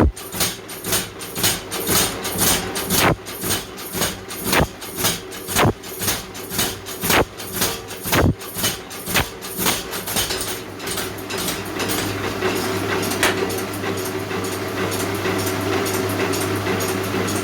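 Hammer blows on hot wrought iron, about two a second and slightly uneven, over a steady machine hum. The blows stop about ten seconds in, and the hum runs on alone.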